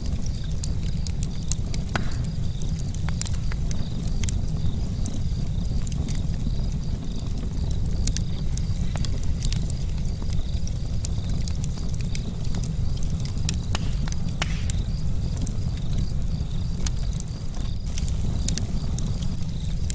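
Campfire charcoal burning, crackling with many scattered sharp pops over a steady low rumble. A steady, high, pulsing trill runs underneath.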